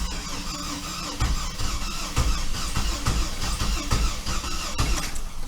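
2005 Chevrolet TrailBlazer's 4.2-litre inline-six being cranked by the starter for about five seconds, with uneven low thumps as it tries to catch but does not start. A crank-no-start fault in which the engine acts like it wants to start, as if it has a little fire.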